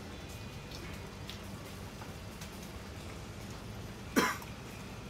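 A man coughs once, short and sharp, about four seconds in, over a steady low room hum with faint scattered clicks.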